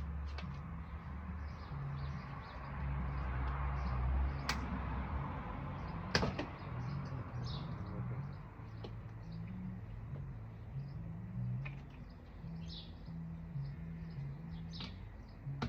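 Two sharp knocks, about four and a half and six seconds in, over birds chirping in the background and a low, uneven hum.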